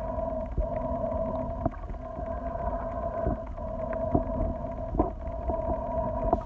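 Muffled underwater sound picked up by a phone held under water: a steady low rumble with a constant hum of a few held tones, and scattered soft clicks and knocks every second or so.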